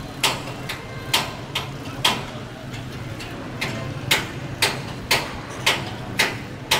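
Hammer blows landing at a steady pace, about two a second, each a sharp strike with a short ringing tail, as a shop-front shelter is knocked down.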